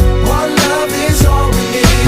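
Background music: a pop/R&B track with a steady beat, heavy bass and a melodic vocal line.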